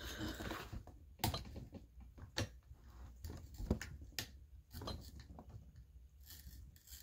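Small hand ratchet wrench working a tight fastener on an AR-15 rifle, giving a few scattered faint metal clicks and knocks as it is turned and shifted.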